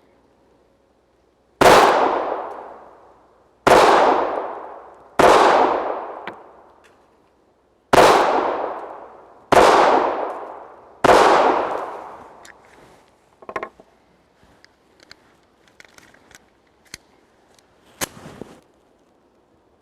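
Colt Mustang Lite .380 ACP pistol fired six times at a slow, uneven pace, each shot ringing out in an echo that fades over about two seconds. Small handling clicks follow in the second half.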